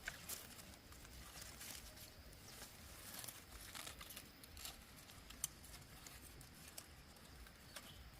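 Faint rustling and crinkling with scattered small clicks over a low background hum, one sharper click about five and a half seconds in.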